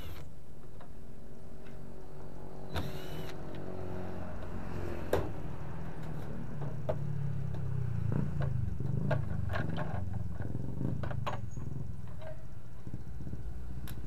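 A cordless drill briefly whirs, driving out a screw from a washing machine's plastic top panel, about three seconds in. Then come scattered clicks and knocks of the plastic panel being worked loose, over a steady low hum.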